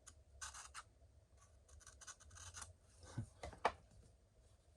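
A very sharp pocketknife blade slicing through paper in short, quiet rasping strokes, as a test of the edge's sharpness. Two sharper ticks, the loudest sounds, come about three and a half seconds in.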